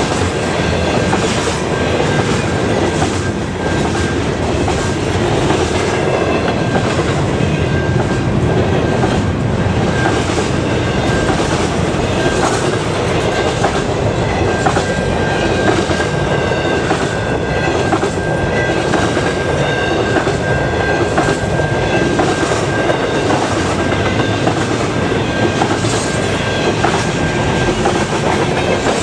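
Double-stack intermodal freight cars rolling past close by: a steady rumble of steel wheels on rail with a running clickety-clack over the rail joints. A thin steady high tone runs through much of it.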